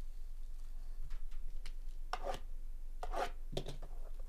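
Shrink-wrapped box of trading cards being handled: the plastic wrap crinkles and rubs in a few short rasps, the loudest about two and three seconds in, over a low steady hum.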